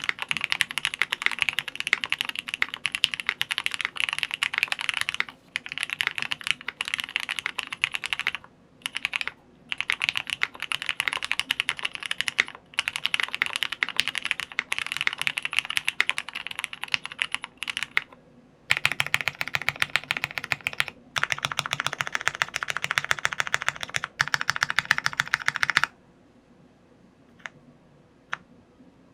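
Mechanical keyboard with lubed Cherry MX Black linear switches (Krytox 205, 70 g springs, foam-dampened) being typed on fast in steady runs of keystrokes with brief pauses. Near the end the typing stops, leaving just a few single key presses.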